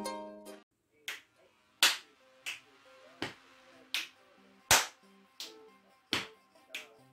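A child's body percussion: sharp hand claps and finger snaps at an even beat, about one every 0.7 seconds, over a faint backing track. Plucked-string music fades out in the first half second.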